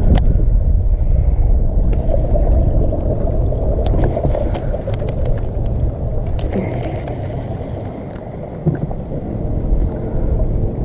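Steady low rumble of wind on the microphone and water around a small fishing boat, with scattered light clicks of a baitcasting reel and rod being handled between about four and seven seconds in.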